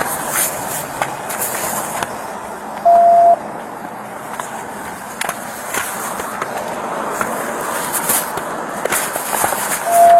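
Steady rolling road noise from a vehicle on the move, with two short single-pitch beeps: one about three seconds in and one near the end.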